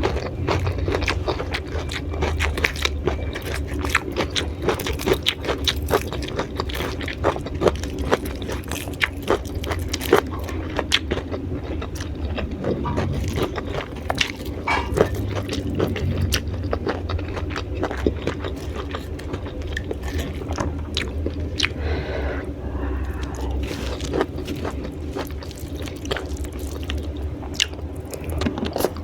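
Close-miked chewing and crunching of raw vegetables (lalapan), a dense, continuous run of crisp crunches.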